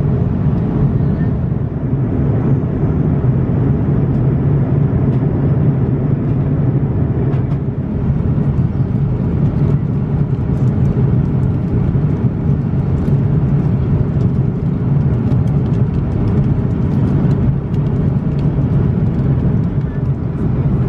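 Steady drone of an Airbus A340-600's economy cabin in cruise, the low hum of its four Rolls-Royce Trent 500 engines and the rush of airflow past the fuselage, even and unbroken.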